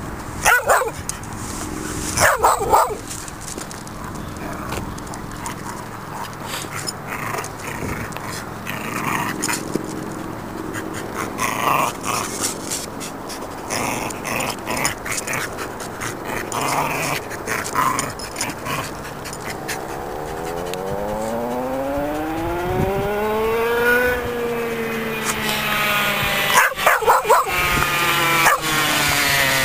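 A dog barking and growling in play as it pounces on an old moped tyre, with a few loud sharp knocks near the start and again near the end.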